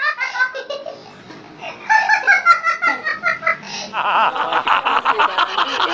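People laughing hard in rapid repeated bursts, dropping away for a moment about a second in before starting again. From about four seconds in, an old man's hearty laugh takes over in a quick, unbroken run of pulses.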